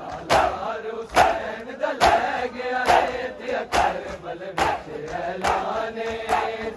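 A large crowd of men doing matam, striking their chests in unison with sharp slaps, about eight evenly spaced strokes a little under a second apart. Between the strokes the crowd chants the noha refrain.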